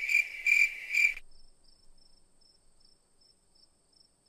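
Insect chirping in loud, regular pulses of a high tone, about two a second, which cut off abruptly just over a second in. A much fainter, quicker chirping goes on after that.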